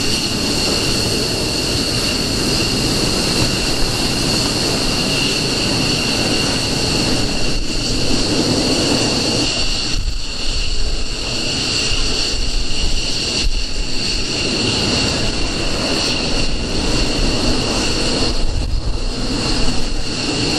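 F-15 fighter's twin jet engines running steadily on the ground: a continuous high turbine whine over a broad rushing noise, holding level throughout.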